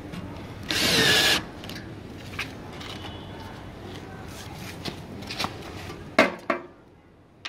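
Cordless drill-driver spinning a wood screw through a steel stand's foot into plywood, one short burst of about half a second about a second in, followed by small clicks and two sharp knocks near the end.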